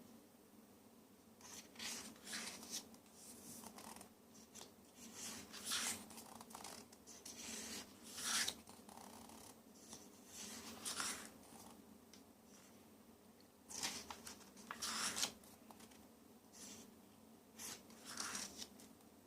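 Paper rustling in short, irregular swishes, about one every second or two, as the pages of a photo essay book are turned and handled, over a faint steady low hum.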